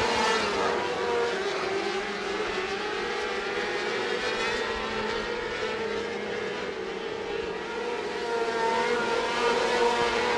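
A pack of micro midget sprint cars with 600cc multi-cylinder motorcycle engines racing at high revs on a dirt oval. The engine notes waver as the cars go through the turns. It is loudest at the start and again near the end.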